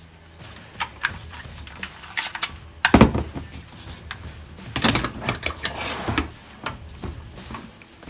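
Irregular metal clicks, clacks and knocks from handling a full-metal CO2 AR15-style air rifle, the loudest knock about three seconds in and a quick run of clacks a couple of seconds later.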